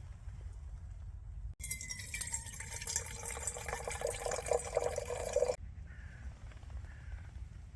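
Liquid being poured into a container for about four seconds, starting and stopping abruptly, over a low steady background rumble.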